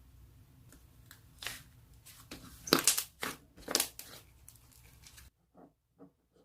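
Several crackling, crunching bursts close to the microphone, the loudest about three seconds in. A little after five seconds the sound cuts to near silence, with only a few faint taps.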